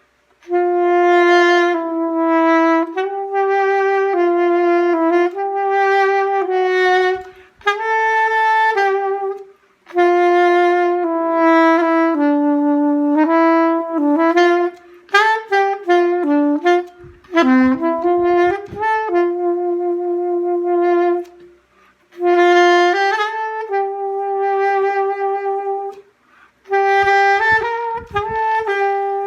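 Unaccompanied solo saxophone playing a Christmas carol melody with no effects, in phrases of mostly long held notes broken by short pauses, with a quicker run of notes about halfway through.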